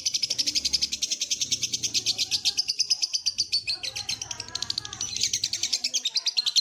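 Lovebird singing its 'ngekek' song: a long, unbroken, rapid chattering trill of high chirps, a little softer for a moment past halfway.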